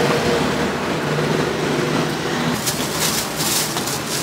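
Steady street-traffic engine hum, joined about two and a half seconds in by crinkly rustling of a thin plastic bag being filled with food.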